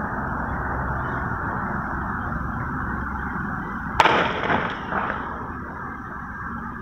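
A single sharp gunshot about four seconds in, followed by about a second of rolling echo, over a steady open-air background noise.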